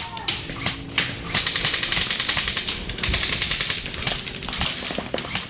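Airsoft guns firing in rapid full-auto bursts, several in a row, the longest running for over a second about a second and a half in.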